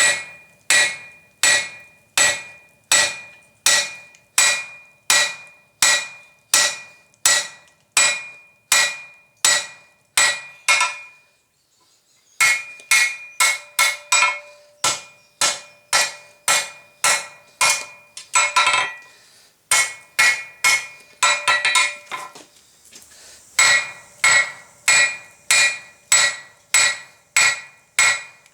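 Hand hammer striking hot flat bar steel on an anvil in a steady rhythm, about three blows every two seconds, each blow followed by a short metallic ring. Roughing in and widening a Suffolk latch handle blank. The hammering pauses briefly for about a second near the middle, then resumes.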